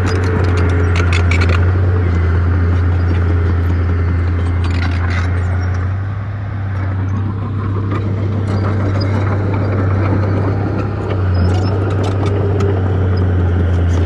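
Heavy diesel earthmoving machinery running at a steady, low drone, with scattered sharp metallic clicks; the engine note eases briefly about six seconds in and again near eleven seconds.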